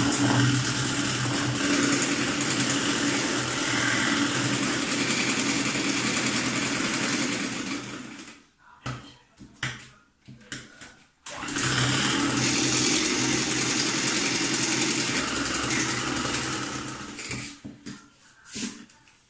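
Electric hand mixer running steadily, its beaters whisking cake batter in a stainless steel bowl. It stops about eight seconds in, starts again about three seconds later, and is switched off near the end.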